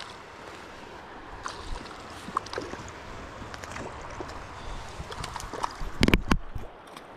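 Water lapping and small splashes with light wind on the microphone, and a quick cluster of sharp knocks about six seconds in.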